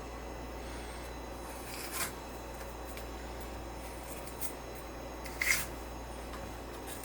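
Kitchen knife cutting through a red bell pepper on a cutting board: two short cuts, about two seconds in and again about five and a half seconds in, with a lighter touch between them, over a steady low hum.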